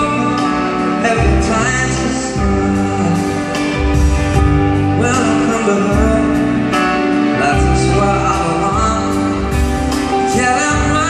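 Live band playing a slow pop ballad with a male lead singer, recorded from the audience in a large concert hall.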